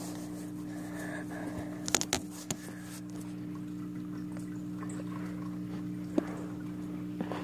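Turtle tank's water filter pump humming steadily over a light trickle of water, with a few sharp knocks about two seconds in and another near six seconds.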